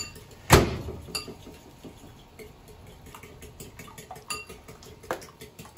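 Kitchen dishes and utensils clattering: one loud knock about half a second in, then a few lighter taps and clinks.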